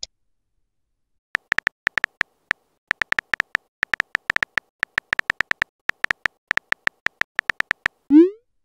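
Phone keyboard typing sounds: a quick, uneven run of short, high clicks, one per letter typed, several a second. Near the end comes a short rising swoosh, the message-sent sound.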